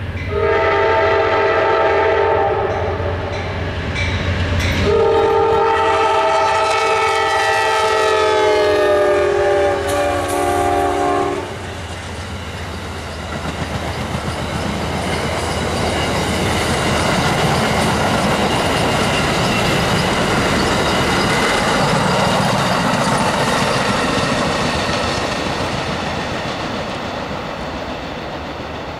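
Amtrak P42DC diesel locomotive sounding its multi-note chime horn in two blasts, a short one and then a longer one whose pitch sags slightly as it passes. The blasts are followed by the steady rumble and clickety-clack of the passenger cars rolling by at speed, fading as the train moves off.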